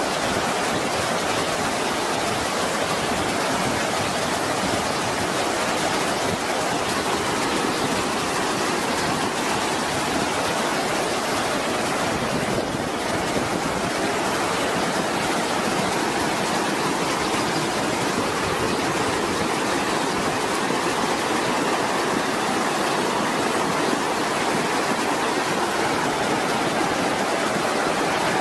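Steady, even rushing noise of wind and tyres from a moving vehicle.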